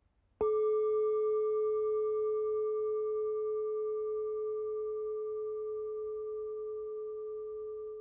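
A bell struck once about half a second in, ringing on one steady pitch with a few fainter higher overtones, and slowly fading without dying out.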